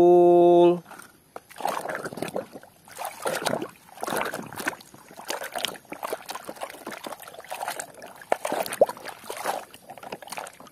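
Water sloshing and trickling in a basin as a muddy plastic toy is swished and rubbed clean by hand, in irregular uneven swishes.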